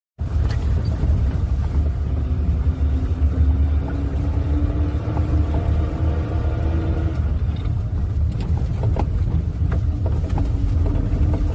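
Motor vehicle engine running under a heavy low rumble, its hum slowly rising in pitch, fading about seven and a half seconds in and coming back near the end, with a few knocks in between.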